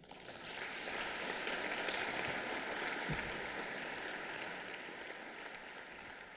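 Audience applauding at the end of a talk, building up over the first second and slowly dying away, with a soft low thud about three seconds in.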